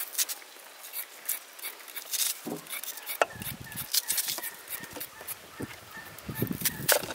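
Onion being sliced in the hand with a serrated kitchen knife: a run of crisp cutting clicks, with duller soft thuds as slices drop onto raw chicken pieces in a pot.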